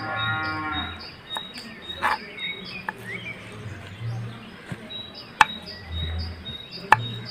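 A drawn-out, steady animal call about a second long at the start, with lower calls later, over a high chirp repeating about twice a second and a few sharp knocks.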